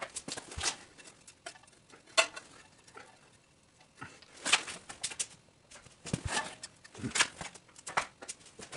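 Irregular metallic clicks and clinks of a small socket wrench being fitted to and worked on exhaust-side bolts, with several sharper taps spread through.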